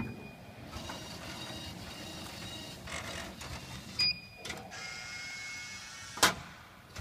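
Product-lift vending machine running its lift and conveyor mechanism, a steady motor whirr with light clicks. A short beep comes about four seconds in, and a single sharp knock just after six seconds is the loudest sound.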